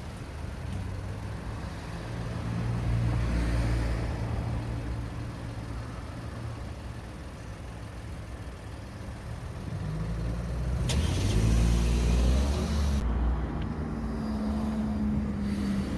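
Road traffic: motor vehicles passing, the loudest pass about three seconds in and another around eleven to twelve seconds in. During the later pass an engine's pitch rises as it accelerates away.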